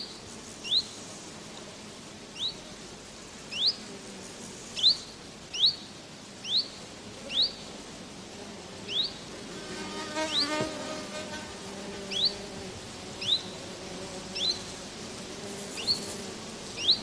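Outdoor wildlife ambience: short, high chirps, each rising in pitch, repeated every second or so at uneven spacing. A lower, buzzier call with several tones comes about halfway through.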